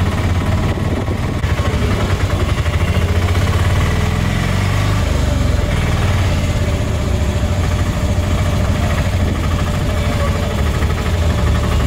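Auto-rickshaw engine running steadily with a loud, low drone.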